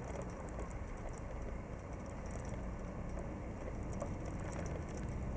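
Steady low rumble of wind and rolling noise on a bicycle-mounted camera's microphone as it rides along a pavement, with scattered light clicks of rattling and traffic on the road beside it.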